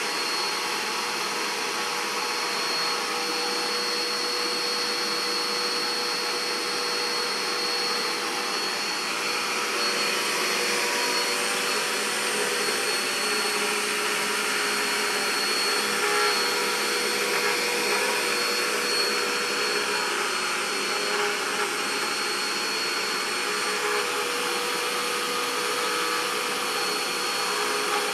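Vacuum cleaner running steadily, a continuous rush of air with a constant high motor whine.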